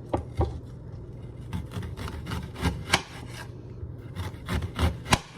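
Knife cutting onion on a cutting board: a string of uneven slicing strokes and taps of the blade against the board.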